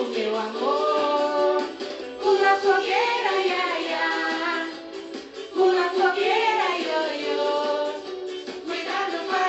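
Music: a high voice singing a festa junina folk tune over a light musical backing, with little bass.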